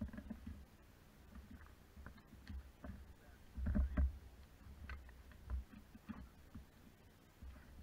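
Scattered low thumps and small clicks close to the microphone, the loudest cluster about four seconds in: someone handling things right beside it.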